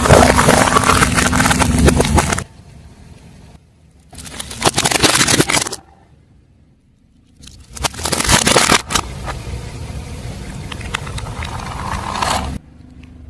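Car tyres rolling over and crushing crunchy objects: loud crackling and crunching over a low rumble, in several separate bursts that start and stop abruptly, with a longer, quieter crackle near the end.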